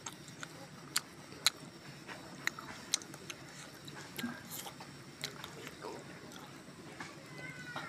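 Close-miked eating sounds of a person chewing masala chicken curry: sharp wet mouth smacks and clicks at irregular intervals, roughly one a second.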